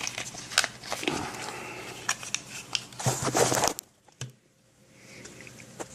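Hands handling an opened Sunbeam 945-61 smoke detector, working at a part inside it that won't come out: a run of plastic clicks and scrapes, with a louder crackling scrape about three seconds in.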